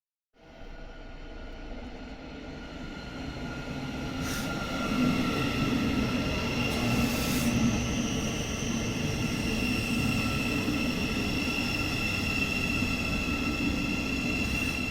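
A train running, growing louder over the first five seconds and then holding steady, with a low rumble under several steady high-pitched whining tones.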